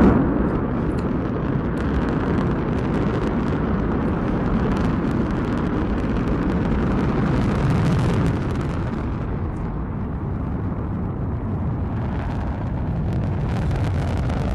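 Soyuz-2.1a rocket's engines at liftoff: a steady, loud rocket rumble with crackle as the vehicle climbs off the pad, easing slightly about eight seconds in.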